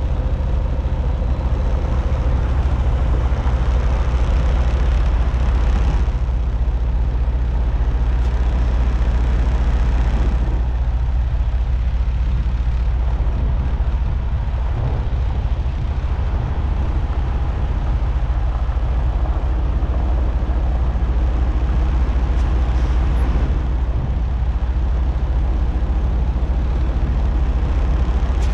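Semi truck's diesel engine running with a steady low drone, with a rushing noise over it that eases off about ten seconds in.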